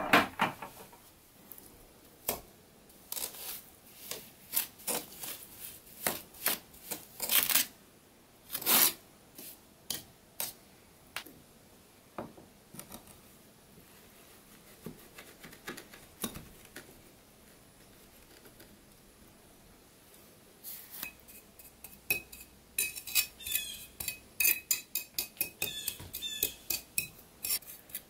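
Metal hand tools scraping and clinking on flagstones and mortar while a cracked stone floor is repaired. The first ten seconds hold a string of separate sharp scrapes and taps. About twenty seconds in comes a fast run of ringing metallic clinks as a pointing trowel packs mortar into the joints between the stones.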